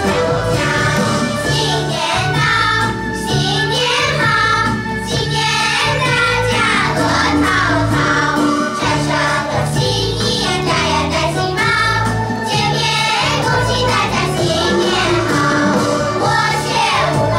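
A choir of young girls singing a Chinese song together over a recorded instrumental backing track with a steady bass line.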